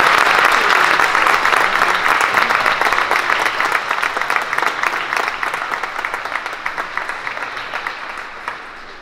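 Audience applause, dense at first and steadily dying away, thinning to scattered separate claps near the end.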